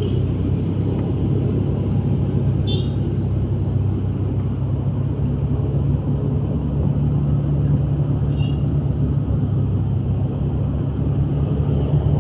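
A vehicle's engine and road noise making a steady drone while it travels at an even speed. Two brief high chirps come through, about three seconds in and again near eight and a half seconds.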